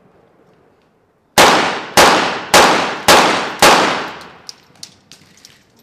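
Five rapid shots from a .22 Short rapid-fire target pistol, about half a second apart, each ringing out briefly in the range hall: one five-shot series at the turning targets. A few much fainter clicks and shots follow.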